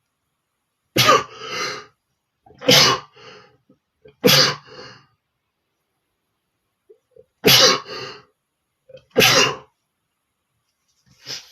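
A man sneezing five times, each a sharp, loud burst with a short breathy tail, mostly about one and a half seconds apart with a longer pause before the fourth. A smaller, quieter sneeze follows right at the end.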